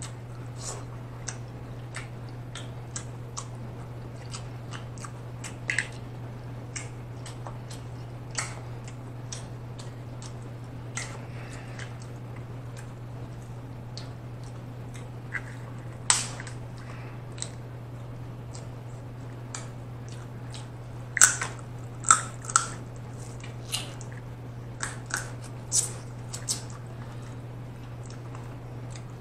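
Close-miked chewing and wet lip-smacking from eating shrimp and snow crab legs. Short, sharp clicks come on and off, with a cluster of louder ones a little past the two-thirds mark, over a steady low hum.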